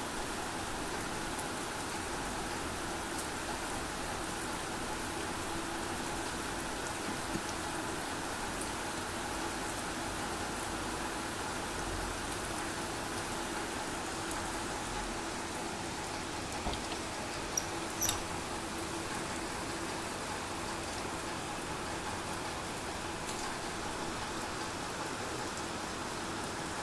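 Steady rain falling on a flat concrete rooftop and splashing on the wet surface. A few sharp ticks stand out briefly about two thirds of the way through.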